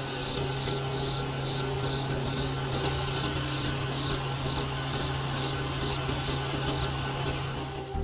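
Small electric motor running steadily with an even whirring hum, cutting off suddenly at the end.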